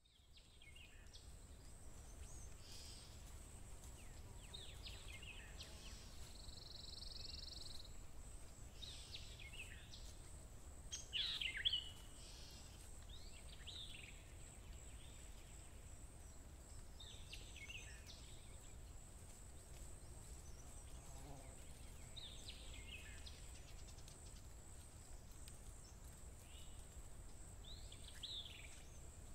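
Nature-sounds ambience of birds chirping in scattered short calls, several sweeping down in pitch, with the busiest burst about eleven seconds in. Under it runs a faint steady high whine and a low rumble.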